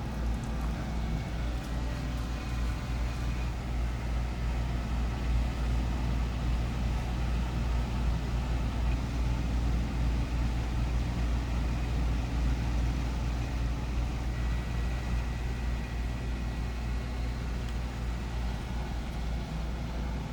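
Home-built hot-wire CNC foam cutter running a cut: its stepper motors drive the wire along a programmed path with a steady low hum and faint whine.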